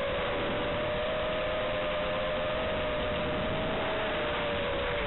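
FPV quadcopter's motors and propellers whining in flight: two close, steady tones that drift slightly in pitch, under a steady hiss from the analog video transmitter's audio.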